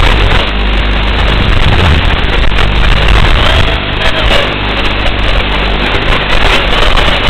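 Tiny whoop quadcopter's 6x17 25000 kV brushed motors and propellers buzzing in flight: a loud, steady, hissy drone with a low hum under it.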